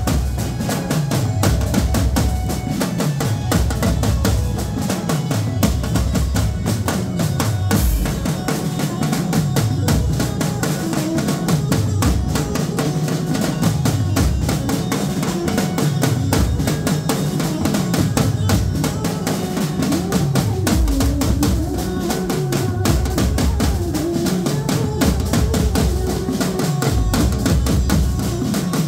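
A live street drum band playing a fast, dense rhythm: a large barrel-shaped dhol, a row of painted drums on stands, a metal side drum and cymbals, with a keyboard playing along. Deep booms that drop in pitch recur every second or two over rapid strikes.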